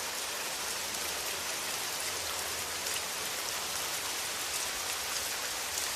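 Steady rain falling, an even hiss of many drops with faint scattered patters of drops on surfaces.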